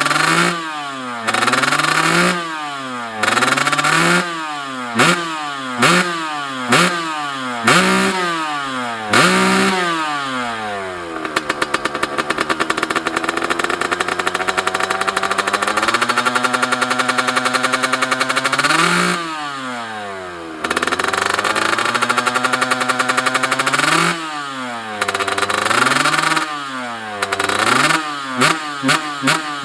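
Kawasaki Ninja grasstrack motorcycle engine free-revving: a series of sharp throttle blips, about one a second, each rising and dropping back. About eleven seconds in it is held at high revs for several seconds, climbing slowly, then falls back to idle and the quick blips start again, coming faster near the end.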